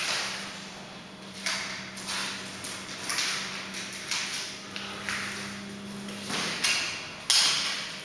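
Green underlay sheets being slid and pressed into place on a concrete subfloor, giving a run of sharp scrapes and rustles about every second and a half, with a faint steady hum underneath that stops about six seconds in.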